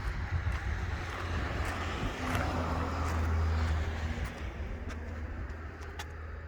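A road vehicle running with a low rumble, swelling louder about two to four seconds in, then fading away as if it passes by.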